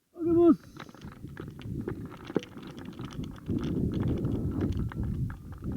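Wind buffeting the microphone: an uneven low rumble that grows stronger a little past halfway. Near the start there is a short pitched call that holds and then drops in pitch.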